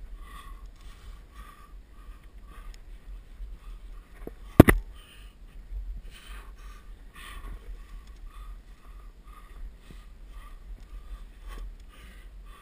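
A climber breathing hard in quick, rhythmic breaths close to the microphone, with one sharp knock about four and a half seconds in.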